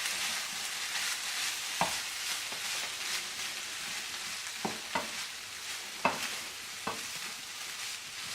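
Quinoa stir fry of chicken and vegetables sizzling in a hot pan while being stirred: a steady hiss with a few sharp knocks of the utensil against the pan, the loudest about two seconds in and again about six seconds in.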